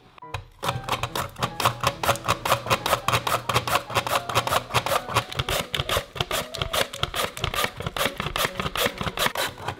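Raw potato being pushed rapidly back and forth over a plastic mandoline slicer's blade, a quick even rhythm of slicing strokes about five a second.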